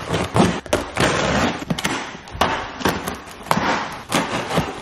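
A cardboard shipping box being cut and pulled open: a blade slitting through the packing tape and cardboard, with an irregular string of sharp scrapes, rips and knocks.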